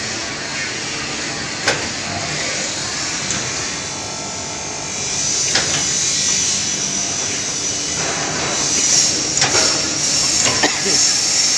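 Veneer sewing machine running: a steady mechanical noise, with a thin high whine coming in about five seconds in and a few sharp clacks as veneer sheets are handled.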